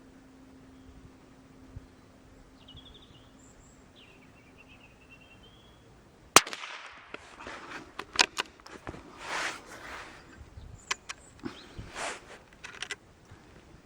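A single shot from a .22 LR bolt-action Brno (CZ) rifle firing a CCI Velocitor round, sharp and loud about six seconds in. It is followed by a string of clicks and rustling. A bird chirps faintly before the shot.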